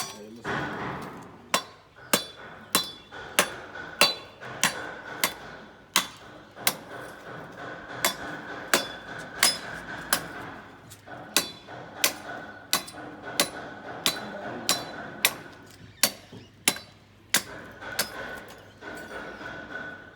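Hammer blows struck at a steady pace, about three every two seconds, each a sharp knock with a brief metallic ring.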